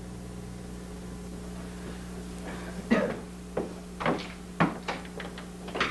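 A steady low hum, then, from about three seconds in, an irregular run of sharp knocks and clicks, about eight in all.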